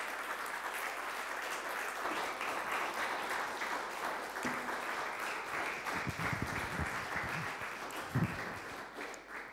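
Small audience applauding with steady clapping that fades away at the very end. A few low thumps come through in the last few seconds, the loudest about eight seconds in.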